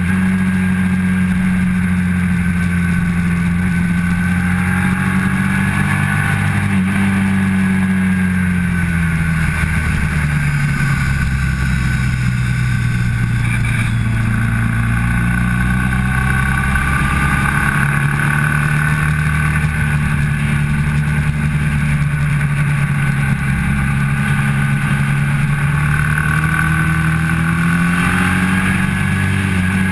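A motorcycle engine pulling hard at track speed, heard from an onboard camera with wind rush over it. The engine note drops about ten seconds in and then builds back up under acceleration near the end.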